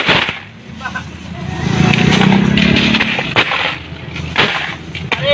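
Loose coins clinking and clattering as hands scoop and sift them in a metal basin, with sharp chinks scattered throughout. A low rumble swells in the middle and is the loudest thing heard.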